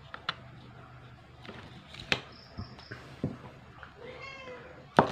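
Scattered sharp plastic clicks and taps of wireless earbuds and their charging case being handled on a glass tabletop, the loudest about two seconds in and just before the end. A quick run of three short high beeps comes about two and a half seconds in.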